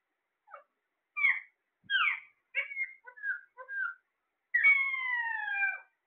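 Caged ring-necked parakeets calling: a run of short chirps and squawks, then one long whistled call that falls steadily in pitch near the end.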